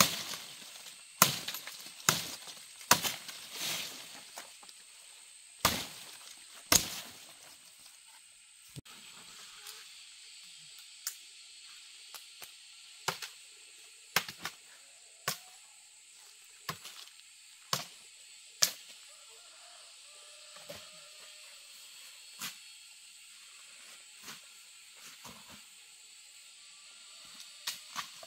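A series of irregular sharp knocks and snaps, loudest and most frequent in the first seven seconds, then sparser and softer, over a faint steady high hiss.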